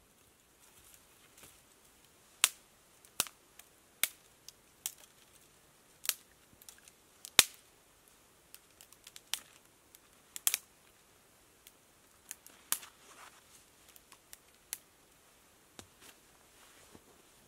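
Small dry twigs being broken up for kindling by hand: sharp, irregular cracks and clicks, some twenty in all, the loudest about seven seconds in.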